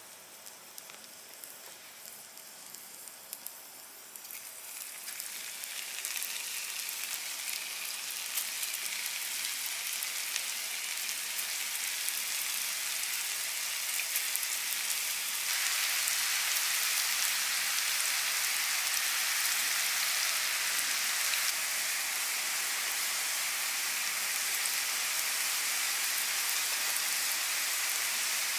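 Hot oil in a frying pan crackling faintly, then sizzling steadily as sticks of tofu and lupin-flake dough are laid in to deep-fry. The sizzle builds over the first few seconds and grows louder again about halfway through.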